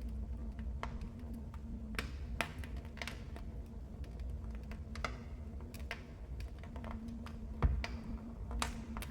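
Wood fire in a fireplace crackling, with irregular sharp pops and snaps over a low rumble; one louder pop with a low thump comes about three-quarters of the way in.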